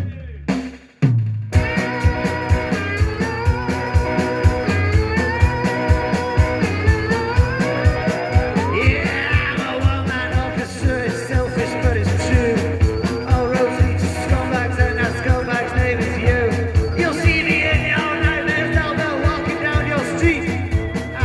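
Rock band playing an instrumental passage of the song live, with a steady driving drum beat under guitar and melody lines. The band breaks off for a moment just after the start and comes back in about a second and a half in.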